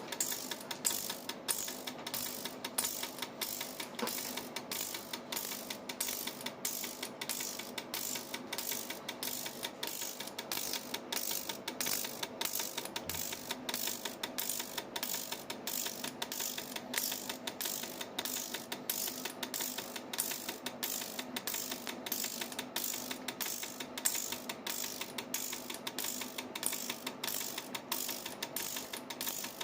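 Gasoline direct-injection fuel injectors pulsing on an injector cleaning and test bench during an ultrasonic cleaning cycle: even clicks about twice a second over a steady hum.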